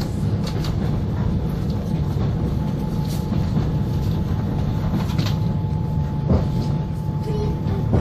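Steady low rumble of a moving passenger train heard from inside the carriage, with a few sharp knocks and rattles standing out a few times.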